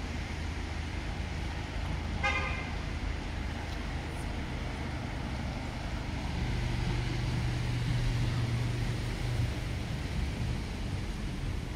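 Street traffic with a short vehicle horn toot about two seconds in, over the steady low drone of a vehicle engine that grows louder midway.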